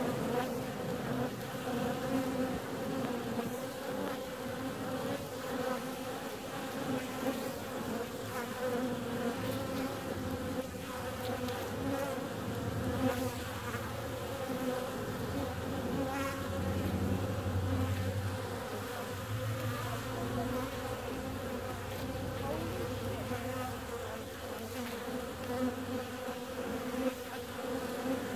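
Honeybees buzzing at a busy hive entrance: a continuous drone of many wings, with a deeper hum that swells and fades as bees fly close, strongest midway through.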